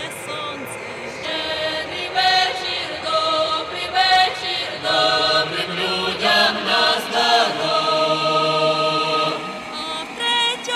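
Voices singing a slow, chant-like folk song, with long held notes that waver in pitch.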